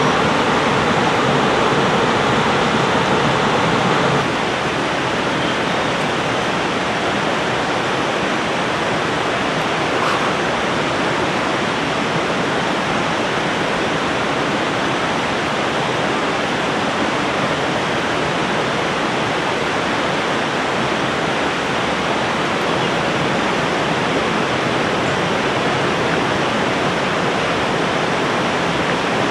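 River water rushing and gurgling past in a steady flow. The level drops slightly about four seconds in, then stays even.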